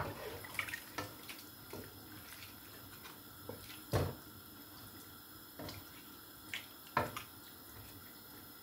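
Wooden spoon stirring chicken pieces in watery broth in a pot, the liquid sloshing, with a few short knocks of the spoon against the pot, the clearest about halfway through and near the end.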